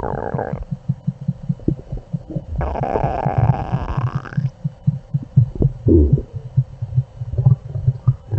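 Human stomach rumbling and gurgling: a steady run of low pulsing thuds, about four or five a second, with bubbly gurgles breaking over it at the start and again for about two seconds in the middle.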